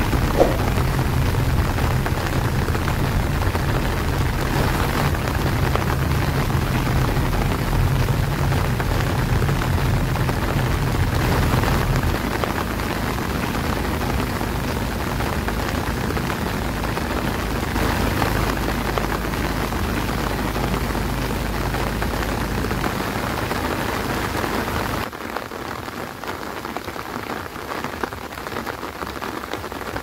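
Heavy rain on a car's roof and windshield heard from inside the moving car, over a steady low engine and road rumble. About 25 seconds in the rumble drops away and only steady outdoor rain remains.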